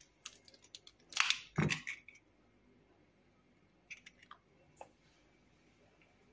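A hen's egg cracked against a drinking glass: a few light taps, then two short crunches of shell breaking about a second in, followed later by a few faint clicks of shell.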